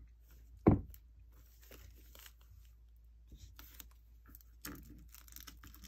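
A shrink-wrapped cardboard box being handled: a single thump about a second in, then faint crinkling and scratching as fingers pick at the plastic shrink-wrap to tear it open.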